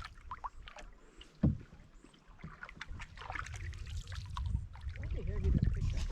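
Canoe paddling: paddles dipping and splashing in the lake water, with a single sharp knock about a second and a half in. A low rumble builds through the second half.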